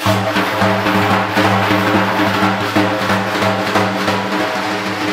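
Iranian daf, a large frame drum with metal rings lining the inside of its frame, played loud and fast: a deep, sustained tone from the skin under a constant jingle of the rings.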